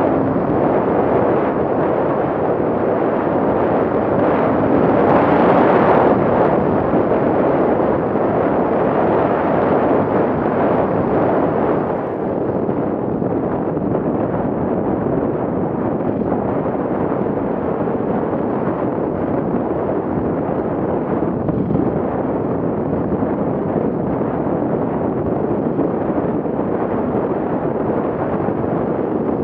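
Heavy wind buffeting on the camera's microphone mixed with a dirt bike's engine and tyres on a rough dirt track, loudest a few seconds in at speed and easing a little about twelve seconds in as the bike slows.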